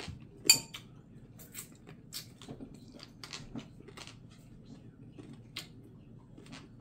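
Tableware clinking as someone eats. A white ceramic bowl is set down on the table with one loud, ringing clink about half a second in, followed by scattered lighter clicks and taps of a spoon and fingers at the dishes.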